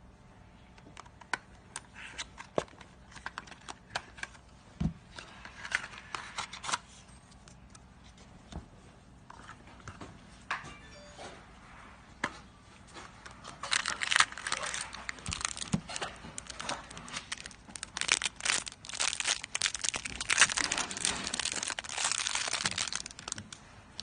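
Crinkling and rustling of handled material with scattered sharp clicks, sparse at first, then denser and louder from a little past the middle until just before the end.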